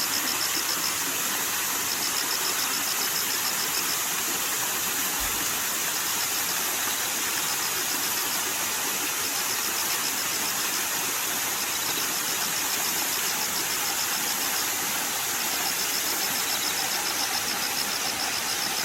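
Steady rush of flowing water, with autumn insects chirping over it in high pulsed trills that come in bouts of a second or two, again and again.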